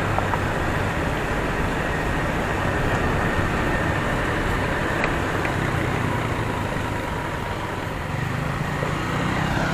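Honda PCX scooter being ridden: a steady engine hum under continuous road noise.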